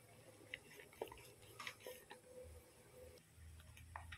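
Near silence with a few faint, scattered clicks and light rustles from a cardboard spice box being handled as garam masala powder is tipped into a steel bowl.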